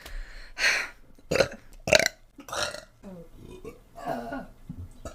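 A woman burping several times in quick succession: a run of short burps, the loudest two in the first half.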